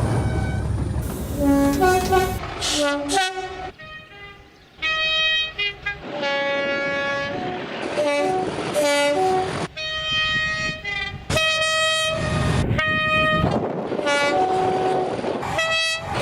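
Multi-chime locomotive air horns sounding chords, a quick succession of different horns cut one after another, with short toots and longer blasts. Train rumble sits under some of the blasts.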